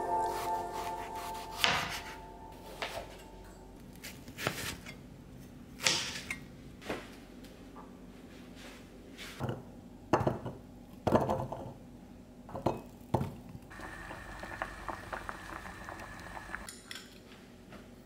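Kitchen knife cutting a peeled kabocha squash on a wooden cutting board, with the chunks set into a bowl: about ten separate knocks and clinks, a second or so apart. A faint steady hum follows near the end.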